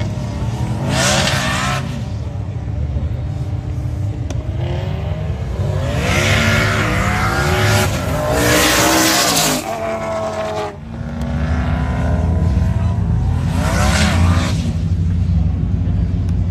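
Race cars accelerating hard in a roll race, among them a single-turbo LS-powered VH Commodore. The engine notes rise again and again as they pull through the gears over a deep rumble. The sound cuts off abruptly partway through and then resumes.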